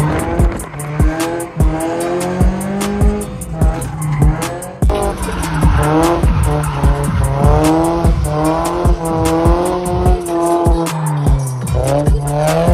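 Background music with a steady beat and a stepping bass line, over a drifting car's engine revving and tyres squealing.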